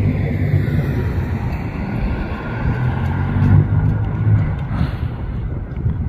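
Approaching diesel freight locomotives, led by a GE C45ACCTE, their engines making a steady low rumble.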